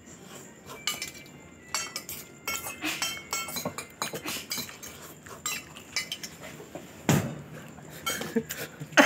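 Metal cutlery clinking and scraping against a plate while noodles are eaten: light, irregular clinks, with one louder thump about seven seconds in.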